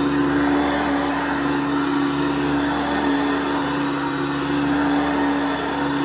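1982 Hoover Decade 80 commercial upright vacuum cleaner running steadily while pushed over carpet: a constant motor hum with one strong steady tone under an even rushing hiss.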